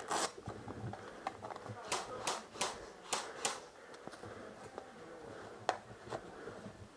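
Airsoft guns firing single shots, sharp pops in an irregular string: one right at the start, a quick run of five over the next few seconds, and two more near the end. Faint voices in the background.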